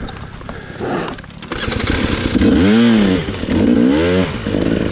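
Dirt bike engine running, revved up and back down twice in quick succession, then settling to a steadier uneven running. A few knocks are heard in the quieter first second or so.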